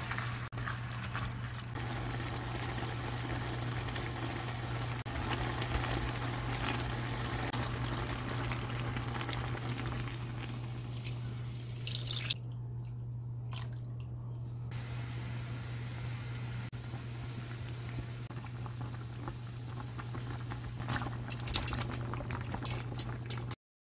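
Kimchi and pork sizzling in a stainless steel pan as they are stirred. Partway through, anchovy-kelp broth is poured in, and the stew then bubbles at the boil. A steady low hum runs throughout, and a few light knocks come near the end.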